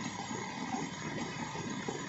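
Heavy rain falling steadily on a flooded paved lane, drops splashing into the standing water.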